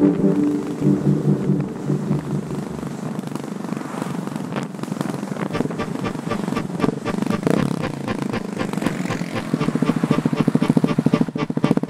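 Husqvarna 701 supermoto's single-cylinder engine running as the motorcycle rides along, heard as a rapid even pulsing that grows stronger near the end. Background music fades out in the first couple of seconds.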